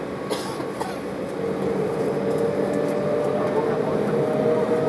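Embraer 190's GE CF34 turbofan engines heard inside the cabin: a steady drone that grows louder about a second and a half in, with a tone that slowly rises.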